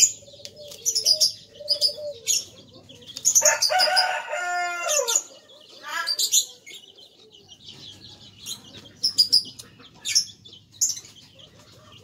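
A rooster crows once about three seconds in, a call of about two seconds that drops in pitch at the end. Short high bird chirps come and go around it.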